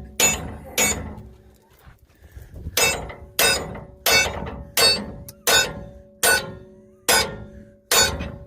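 A hammer striking the steel blade assembly under a Woods mower, about ten blows roughly one a second with a pause early on. Each blow leaves a ringing metallic tone, from tapping a part that has dropped back up into place.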